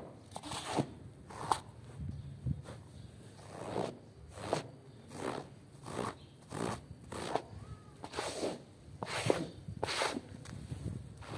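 A handheld scraper dragged in quick strokes through thick soap foam over a wet rug and stone floor, a wet swishing scrape repeating roughly every half to three-quarters of a second.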